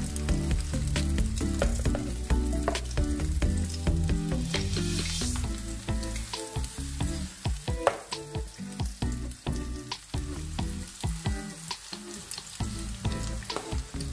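Hot oil sizzling and crackling in a frying pan as spoonfuls of vegetable-and-egg batter fry, with a metal spoon scraping and stirring the batter. The crackle is denser in the first half and thins out later.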